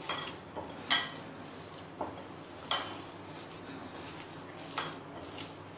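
Hands kneading semolina dough in a glass bowl, with about five short, sharp clinks against the glass that ring briefly, spaced irregularly.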